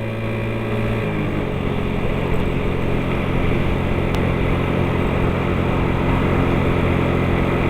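Motorcycle engine running under way, its note shifting about a second in and then building gradually.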